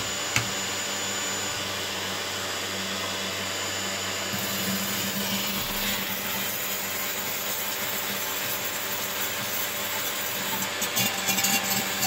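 Steady whirr of the electric cooling fan motors on a high-voltage reactor rig, with a single switch click about half a second in. A higher hiss joins about four seconds in.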